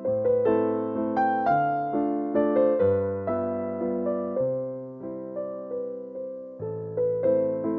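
Background piano music, with notes struck one after another and left to fade.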